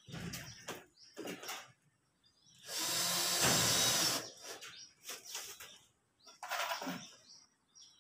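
Cordless drill driving a screw up through a ceiling board into the steel ceiling frame, running for about a second and a half a few seconds in. Shorter knocks and scrapes come before and after it.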